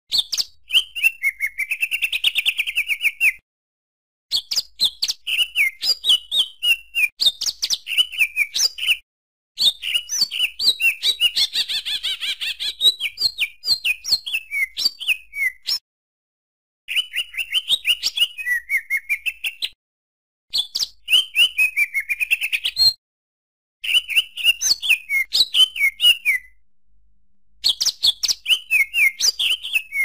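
Cucak hijau (greater green leafbird) singing: a fast, varied chatter of chirps, trills and short whistled glides, in phrases of a few seconds that break off suddenly into brief silences and then start again.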